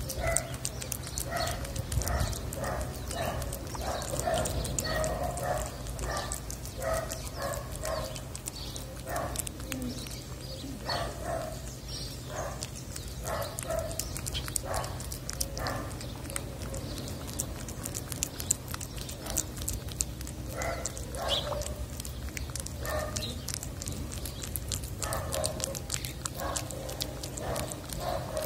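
Tabby cat chewing and smacking wet cat food from a plastic dish close to the microphone, with fine wet clicks throughout. Over it, short animal calls repeat about twice a second in three runs with brief pauses between.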